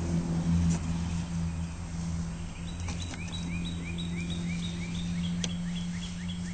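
A steady low hum with a few faint clicks; from about two and a half seconds in, a bird chirps over and over, about three short rising chirps a second.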